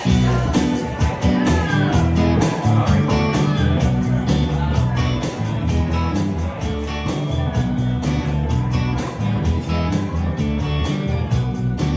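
A rock band playing the song's instrumental intro: guitar and bass over drums keeping a steady beat.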